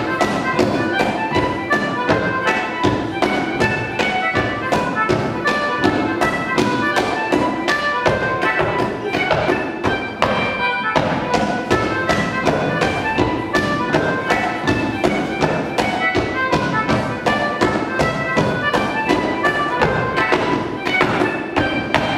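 A lively dance tune with quick, evenly spaced taps of hard shoes on a small wooden step board, about four to five a second: Dartmoor stepdancing in time with the music.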